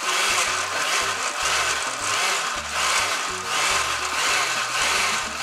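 Oster glass-jar blender running in short pulses, its blades chopping chunky tomatillo salsa verde ingredients into a purée; the noise swells and eases every second or so.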